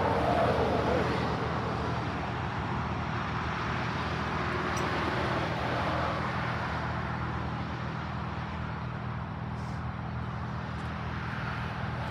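Road traffic: cars driving past with a steady hiss of tyres and engines.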